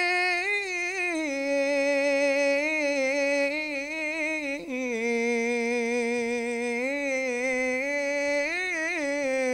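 A single voice singing an unaccompanied Arabic invocation in long, ornamented held notes, the pitch stepping down about a second in and again near the middle; no drums play, and the voice stops near the end.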